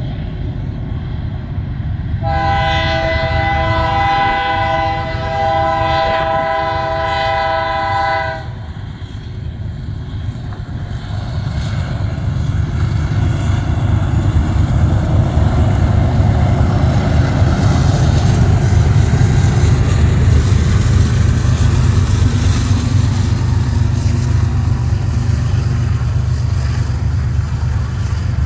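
Diesel freight locomotives sound their horn, a chord of several notes held for about six seconds starting about two seconds in. The lead BNSF locomotives then rumble past, and the freight cars follow, rolling by with a steady, growing roar of wheels on rail.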